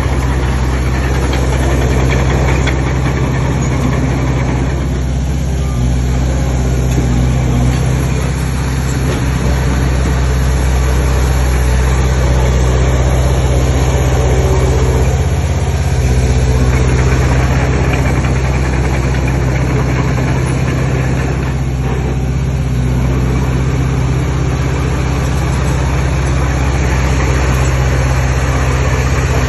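Heavy diesel engine of earthmoving machinery running steadily, its pitch shifting slightly a few times.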